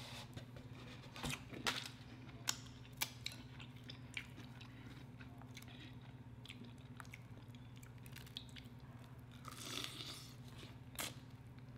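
Close-miked biting and chewing of crispy fried chicken wings, with sharp crunches scattered through, most in the first few seconds and again near the end. A steady low hum runs underneath.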